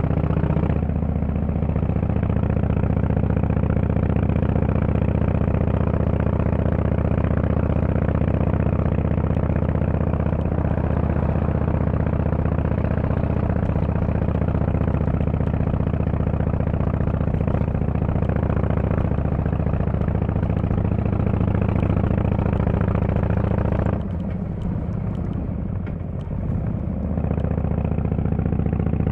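Harley-Davidson Fat Boy S's Screamin' Eagle Twin Cam 110 V-twin running through a Kesstech valved exhaust at a steady engine speed. Near the end it drops off for a few seconds, then picks up again.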